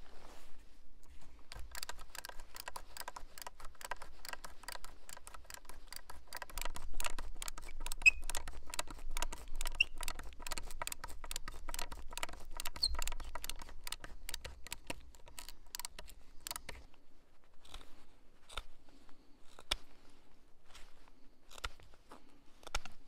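Hand-turned Lewis auger bit boring into a wooden pole, a dense, rapid crackle of the bit cutting through the wood fibres. The crackle stops about 17 seconds in and is followed by a few scattered clicks.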